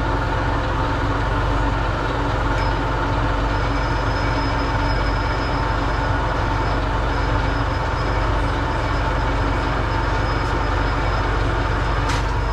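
Steady hum of a running machine motor in a metalworking shop, with a constant whine over it; a single sharp click sounds near the end.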